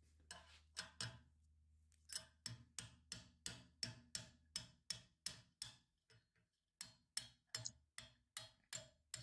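Light hammer taps on a steel pin punch, driving the hinge pin out of a 1964 Chevrolet Impala door hinge held in a bench vise. A steady run of about three taps a second, with a few scattered taps before and after.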